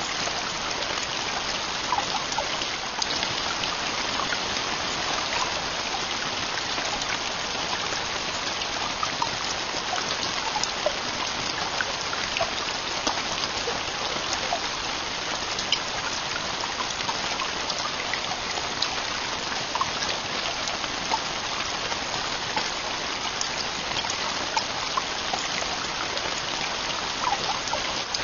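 Heavy rain falling steadily: a dense, even hiss with many individual drops ticking through it.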